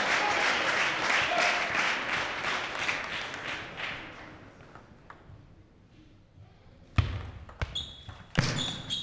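Crowd applause dying away over the first four seconds, then a hush. About seven seconds in a point starts: sharp clicks of the table tennis ball off the rackets and table, four within two seconds, the first the loudest.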